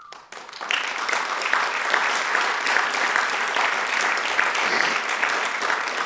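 Audience applauding, breaking out just after a speaker's closing line, starting about half a second in and holding steady.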